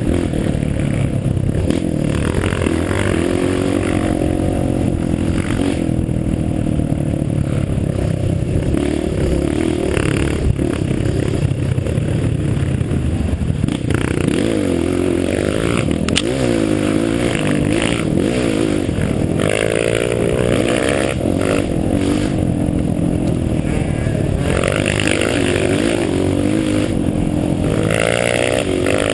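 An off-road vehicle's engine running under load on a dirt trail, revving up and down over and over as it climbs through rough ground, with a few knocks and scrapes.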